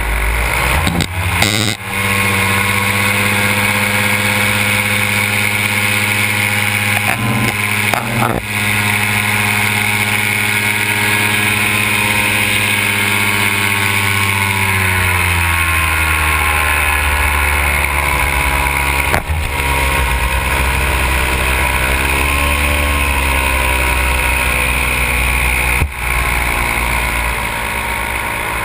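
Paramotor's Simonini two-stroke engine and propeller running steadily in flight, with wind rushing past. About halfway through the engine is throttled back and its pitch drops and settles lower, wavering briefly later on.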